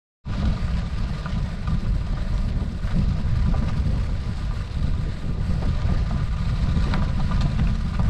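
Wind buffeting the microphone of a camera moving along a gravel dirt road, a steady, heavy low rumble, with faint clicks and rattles from the rough road surface.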